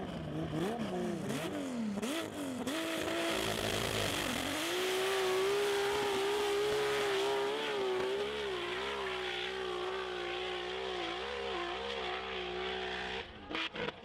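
Turbocharged sand-drag SUV engine blipped hard up and down for about four seconds, then held at full throttle at a high, slightly wavering pitch as the vehicle climbs the dune. The engine sound cuts off near the end.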